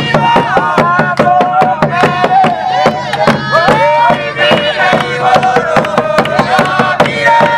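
A group singing a lively hymn to a large frame drum beaten by hand, with hand-clapping, keeping a steady beat.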